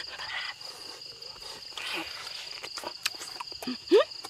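Night insects chirring, a steady high-pitched pulsing trill, with scattered short clicks from eating. A brief rising vocal groan comes near the end.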